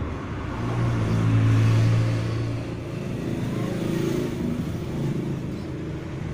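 Hum of a running motor vehicle engine, loudest in the first few seconds, then shifting in pitch.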